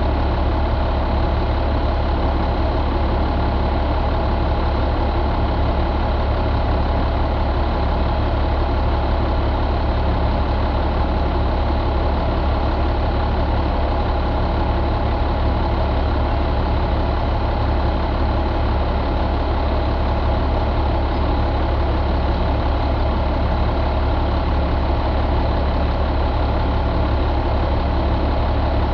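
2004 International DT466E inline-six turbo diesel engine idling steadily.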